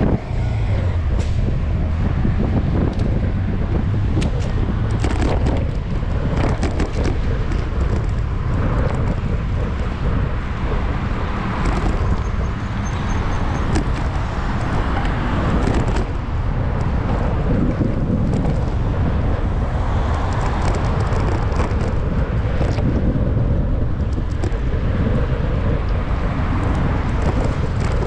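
Wind rumbling on a GoPro's microphone while cycling, over road traffic noise, with scattered short knocks and rattles.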